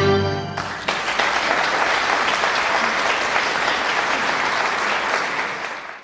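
An audience applauding steadily as a musical number finishes: the last held chord of the music ends about half a second in, then clapping fills the rest and fades away near the end.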